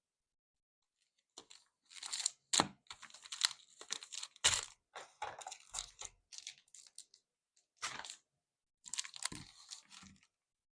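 Packaging being opened by hand: crinkling plastic or foil, tearing and sharp clicks in irregular bursts, starting about a second and a half in.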